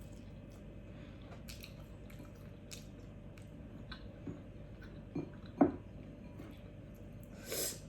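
Eating sounds: soft wet chewing and mouth sounds, with scattered light clicks and one sharper knock about five and a half seconds in.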